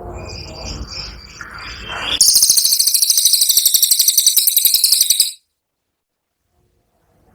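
Cililin songbird singing: a few scattered high chirps over a low background rumble, then a loud, very fast, high-pitched trill ('tembakan') for about three seconds that cuts off suddenly into silence.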